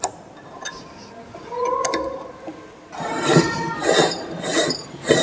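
Steel machine parts clinking and knocking as the roller frame is handled on a wooden table: a few sharp clicks at first, then a run of louder rattling and scraping from about three seconds in.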